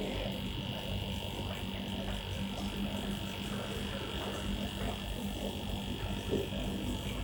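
Salvaged refrigerator compressor running as an air pump, a steady electric buzzing hum while it pumps air into a tyre.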